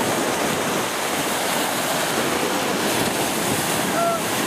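Sea surf washing and breaking, a steady rush of water noise.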